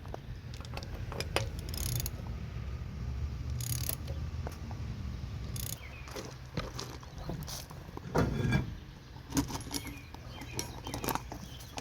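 Lug nuts being spun off a van wheel by hand and set down, with scattered light metallic clicks and clinks and a louder clatter about eight seconds in, over a steady low rumble.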